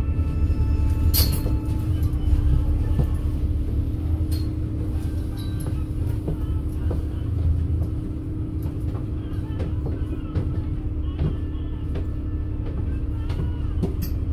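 Double-decker bus's engine running with a low rumble and a steady hum, heard from inside on the upper deck, with a sharp click about a second in.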